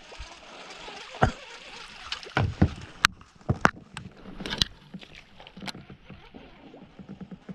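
A string of sharp knocks and thuds on a small boat's hull, about nine in all and irregularly spaced, over light water sloshing.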